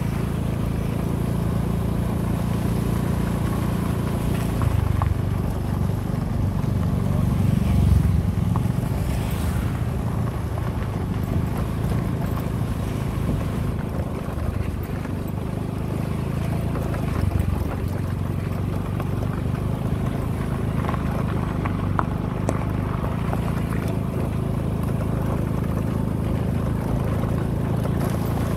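Small motorbike engine running steadily while riding along a dirt path, with wind and road noise. The engine note shifts a little now and then.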